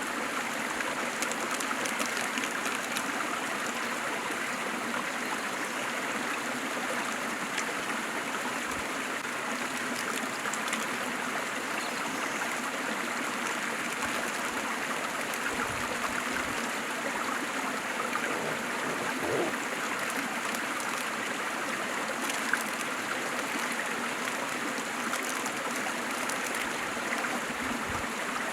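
Waterfall: a steady, even rush of falling water, with small splashes and trickles scattered through it.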